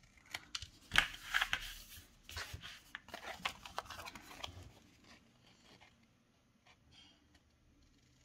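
Scissors cutting white cardstock, trimming glue tabs at an angle: a run of short sharp snips with paper rustling as the piece is turned in the hands. After about five seconds it goes mostly quiet apart from a few faint ticks.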